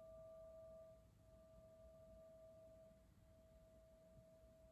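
Near silence with a faint steady ringing tone held at one pitch and a weaker higher tone above it.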